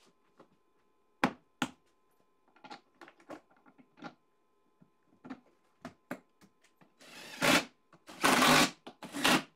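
Bolts and pins clicking and knocking as they are handled and set into holes in a wooden board on a workbench. There are two sharp knocks about a second in and lighter taps after, then three loud bursts of noise near the end.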